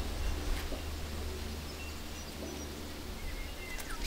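Faint scattered bird chirps and short whistles over a steady low rumble.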